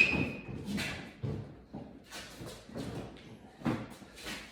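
Plastic fuel tank and parts knocking and scraping against a snowmobile's chassis as they are worked into place by hand: a string of irregular knocks and rubs, with a short squeak at the start.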